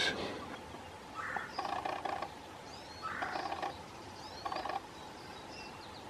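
Pileated woodpecker pecking and prying into soft rotten wood of a tree stump while hunting grubs, heard as three short bursts of rapid rough tapping. Faint small-bird chirps are heard in the background.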